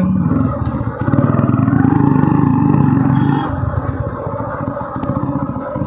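Small motorcycle engine running close up while riding, its fast firing pulse growing louder about a second in, then easing off.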